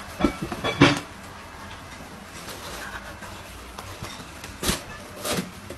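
Short knocks and scuffs on a cardboard box as two cats paw and tussle in it: a cluster of them in the first second, and two more near the end.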